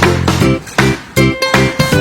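Background music with a steady, regular beat.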